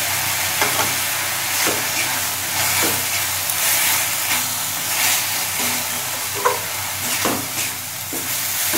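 Ground spices frying with onion and tomato paste in mustard oil in a metal kadai: a steady sizzle, with a metal spatula scraping against the pan in repeated strokes about once a second as the masala is stirred and sautéed.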